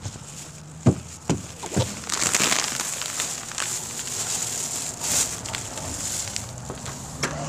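Footsteps on wooden porch steps: three knocks about a second in, then rustling, crinkling noise and a few scattered clicks.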